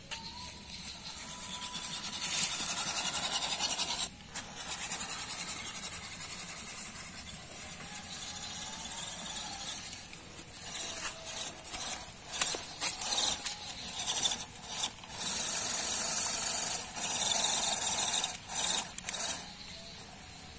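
An MN99S scale RC crawler driving through a shallow muddy stream: its small electric drive motor whining while the tyres churn and splash the water. The sound is uneven, with choppier splashing and short rattles in the second half.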